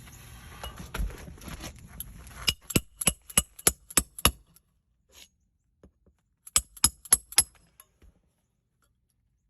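Sharp metallic strikes in two quick runs, about three a second: a hammer striking a metal roofing nail-removal tool worked in under an asphalt shingle.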